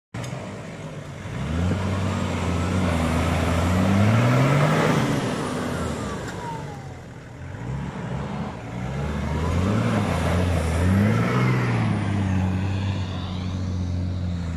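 A Nissan pickup's engine runs under off-road load, revving up and down in two long surges about four and eleven seconds in over a steady low running note.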